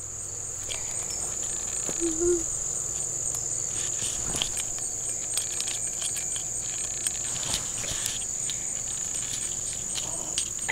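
Crickets chirping in a steady, high-pitched trill, with a few light clicks from hands working on a small rubber wheel.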